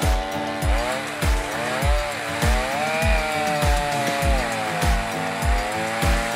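Stihl 500i fuel-injected two-stroke chainsaw with a ripping chain running under load as it cuts a slab lengthwise through a maple log in a chainsaw mill, its pitch wavering with the cut. Background music with a steady low beat, about one and a half beats a second, plays over it and gives the loudest peaks.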